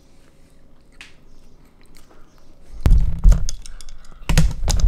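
Quiet at first. About three seconds in come loud bites and chewing of a soft iced donut held close to the microphone, in a few heavy, thudding bursts.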